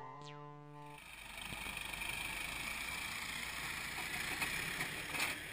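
The last held notes of background music fade out in the first second. Then comes the steady, muffled running noise of a Massey Ferguson 4345 diesel tractor, with a light knock near the end.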